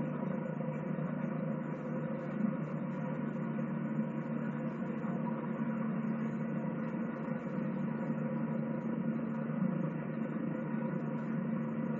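Helicopter hovering, a steady, muffled rotor and engine drone.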